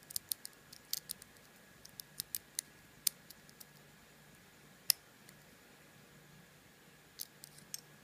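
Scattered sharp little metallic clicks of a shim and pick working in the brass core of a Master Lock 410 padlock during core shimming. The clicks come thick and fast for the first three seconds, there is a single louder click about five seconds in, and a few more come near the end.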